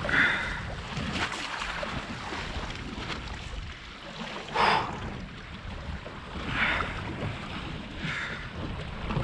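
Wind buffeting the microphone over sea water lapping against a small boat's hull. A few short, louder rushing bursts come through: one just after the start, a sharp one about halfway, and two near the end.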